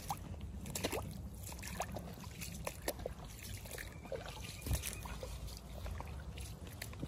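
Rubber boots wading through shallow standing water, an irregular run of splashing, sloshing steps.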